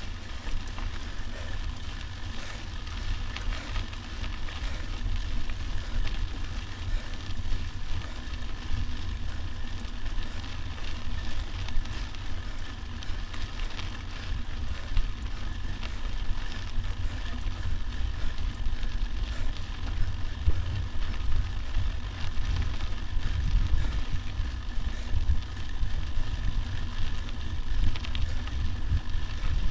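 Wind buffeting a mountain bike's camera microphone as a deep, constant rumble, over the crackle of knobby tyres rolling on a dusty dirt track.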